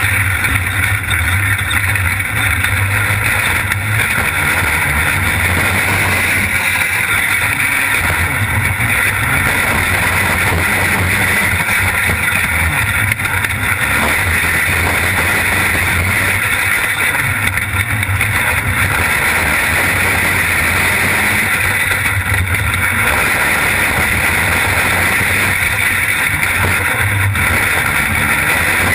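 250cc racing kart engine running hard under race throttle, heard from on board the kart, a loud steady drone through the whole stretch.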